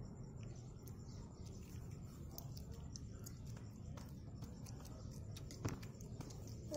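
Low steady background noise with scattered faint clicks, and one sharper click about five and a half seconds in.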